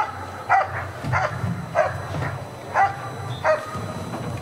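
German Shepherd Dog barking repeatedly, one short sharp bark about every two-thirds of a second, six in all: the hold-and-bark at the blind in IPO protection work.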